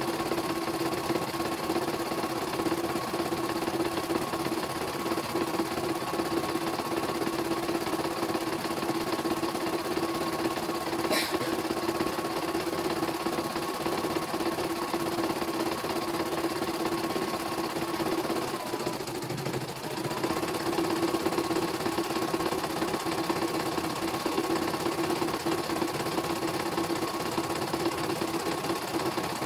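CNY E900 computerized embroidery machine stitching a test design: the needle mechanism runs steadily while the hoop carriage steps the fabric about. There is one sharp click about eleven seconds in, and the running sound briefly dips and changes near twenty seconds before carrying on as before.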